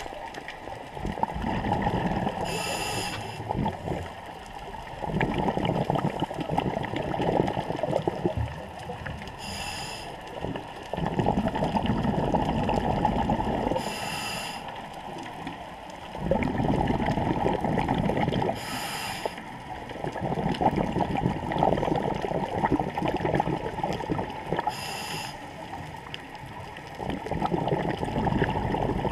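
Scuba diver breathing through a regulator underwater. Each breath is a short hiss on the inhale, followed by several seconds of bubbling on the exhale, repeating about every five seconds.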